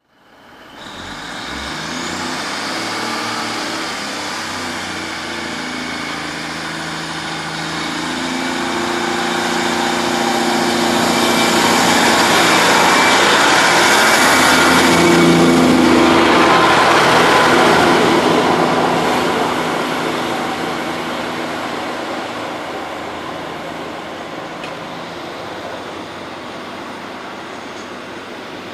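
London Midland diesel multiple unit running past along the platform: a steady diesel engine hum and rushing wheel-on-rail noise that build to their loudest about halfway through, then fade slowly as the train moves off.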